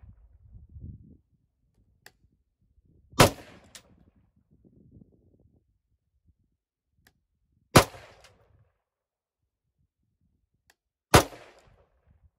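Three single shots from a POF 415 AR-style rifle firing 75-grain .223 rounds, a few seconds apart, each trailing off briefly.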